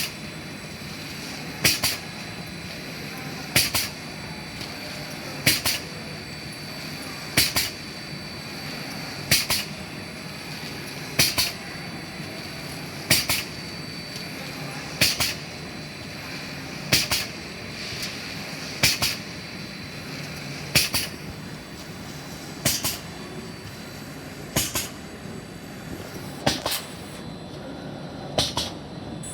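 Automatic plastic bag cutting machine running, a steady hum with a pair of sharp clacks on every cycle, about once every two seconds at an even pace.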